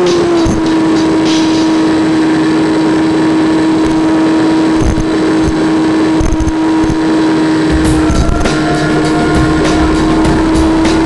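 Electric pusher motor and propeller of a Multiplex Easy Star RC plane running under power, heard from on board: a steady whine that dips slightly in pitch just after the start, with scattered crackles.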